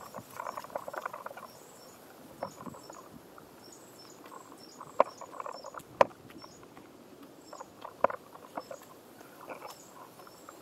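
A hiker's footsteps on a dirt and rock mountain trail: irregular crunching steps with a few sharp clicks of boot on stone, the loudest about halfway through and again near two thirds in. Faint, high, short chirps repeat in the background.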